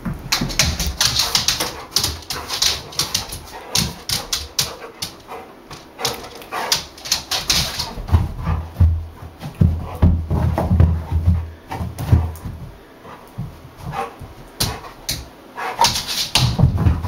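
Bullmastiff–rottweiler cross chasing a reflected light: excited whimpers and occasional barks over a run of quick clicks and scuffs from its paws and claws scrabbling on the rug and wooden floor.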